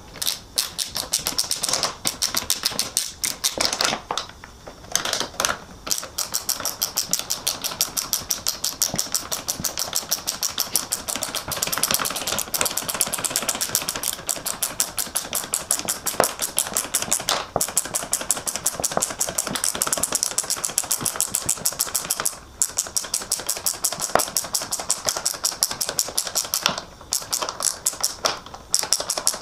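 Ratchet wrench clicking in a fast, even run as it tightens the bolts holding a front splitter to the bumper, stopping briefly a few times.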